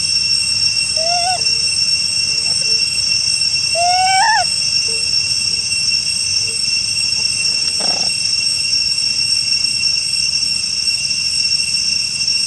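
A steady high-pitched drone of insects, typical of cicadas in tropical forest, runs throughout. Two short macaque calls rise and then fall, about one and four seconds in, and there is a single click near the end.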